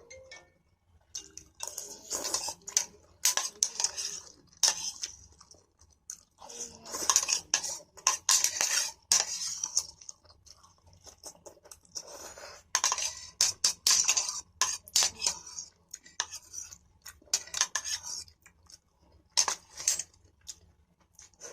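Spoon and fork clinking and scraping against a plate in irregular bursts, as in eating a plate of noodles.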